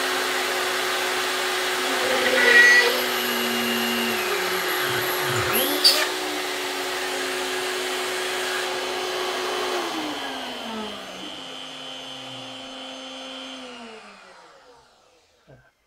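Shapeoko CNC router spindle drilling aluminium plate with a shop vacuum running alongside, with two brief louder moments about 2.5 and 6 seconds in. From about 10 seconds in the spindle and vacuum wind down, their whines falling in pitch and fading out near the end.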